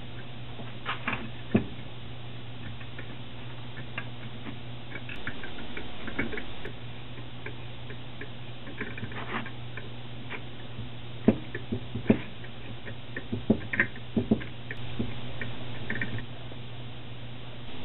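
Scattered sharp clicks and clinks of small metal hand tools and parts being handled on a workbench, the tap wrench and drill-press vise among them, over a steady low hum. The clicks come in a quick cluster about two-thirds of the way through.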